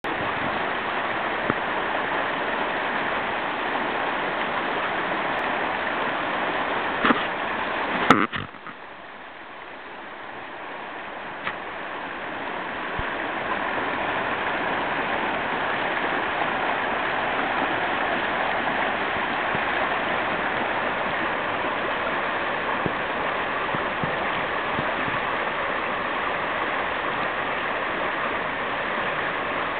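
River rapids rushing steadily through whitewater. About seven and eight seconds in come two sharp knocks. After them the rush drops much quieter and builds back up over the next few seconds.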